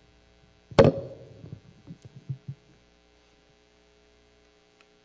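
A handheld microphone set down onto a table: one loud knock about a second in, then a few softer knocks and handling rustles over the next two seconds. After that only a faint steady electrical hum.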